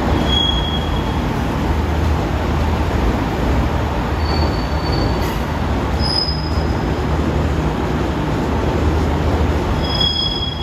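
JR Kyushu KiHa 66/67 diesel railcars in Sea Side Liner livery rolling slowly past: diesel engines running with a steady low hum under the rumble of wheels on rail. Short high-pitched wheel squeals come about half a second in, around four and six seconds in, and again near the end.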